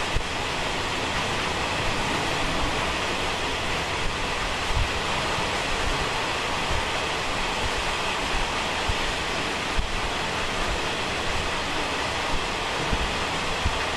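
Steady rushing noise of a Taiwan Railway SPK32717 ordinary-class passenger carriage running at about 70 km/h through a tunnel, with a few scattered low thumps from the wheels and running gear.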